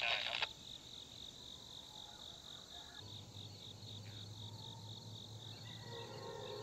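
A voice on a radio cuts off about half a second in, leaving an insect chirping in a steady, high-pitched pulse, about five chirps a second.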